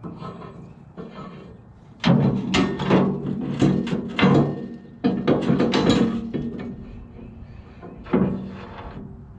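Steel clamp-on pallet fork being slid along the lip of a backhoe bucket: metal scraping and clanking in two bouts of about two seconds each, then a single knock near the end.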